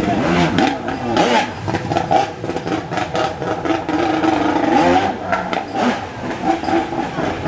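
Stunt jet ski's engine revving hard, its pitch swinging up and down as the rider spins and carves.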